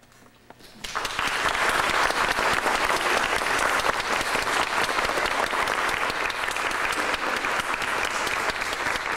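Audience applauding: a few scattered claps, then full applause breaking out about a second in and carrying on steadily.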